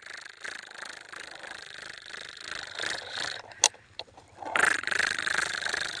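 Dry soil scraping and rustling as a hand-pushed plastic toy backhoe digs its bucket into the dirt, with one sharp click about halfway through. The scraping grows louder in the second half.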